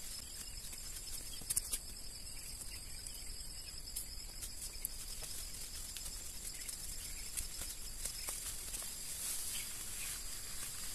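Steady high-pitched insect chorus, with faint rustling and snapping as weeds are pulled up by hand.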